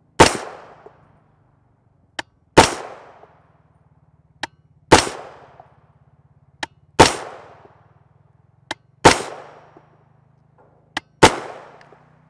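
Six rifle shots about two seconds apart, each with a short echoing tail, from a suppressed 16-inch AR-15 in 300 Blackout firing subsonic 220-grain Sierra MatchKing loads at about 1,000 fps. A faint short click comes just before each shot.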